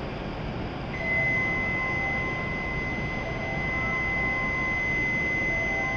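Steady high electronic warning tone starting about a second in, over softer intermittent chime notes, sounding as the doors close on a departing W7 series Hokuriku Shinkansen train; a low hum of the train and station runs underneath.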